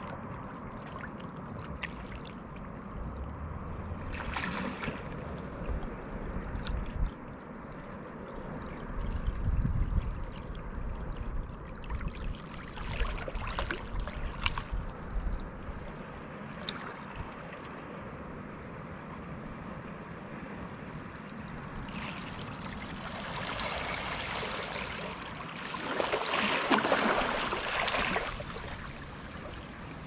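Small sea waves lapping and washing over a rock shelf and a submerged wooden ramp, with a steady wash and a few brief splashes. A bigger surge of water washes in near the end, the loudest part.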